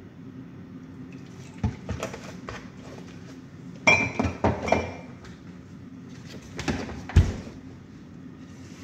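Kitchen handling clatter: glass bottles clinking and knocking as they are set down on the counter, one clink ringing briefly, then a sharper knock with a low thud as cookware is picked up near the end. A steady low hum runs underneath.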